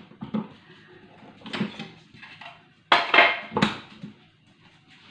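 Kitchenware being handled and set down on a counter: a few separate sharp knocks and clatters, the loudest two close together about three seconds in.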